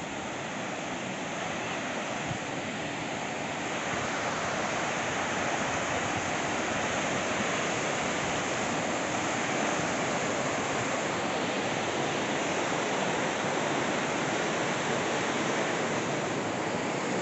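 Mountain river rushing over rapids: a steady wash of water noise that grows louder about four seconds in.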